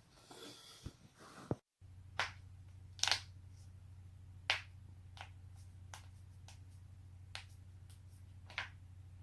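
Joints cracking in a series of sharp pops, about eight of them spread over several seconds. The loudest is a double pop about three seconds in. A steady low hum runs underneath.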